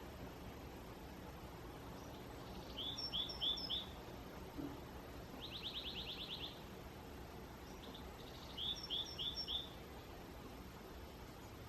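Small songbirds singing over a steady faint background. A rapid trill about a second long alternates with a phrase of four quick chirping notes; each is heard twice.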